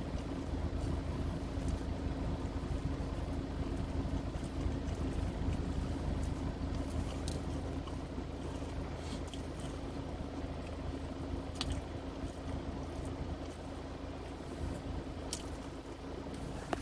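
A car's engine running steadily, a low hum heard inside the cabin, with faint wet chewing and mouth clicks now and then.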